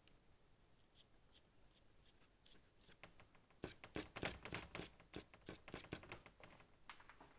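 Paintbrush dabbing and scratching on paper in a quick series of short strokes, faint at first and busiest through the middle.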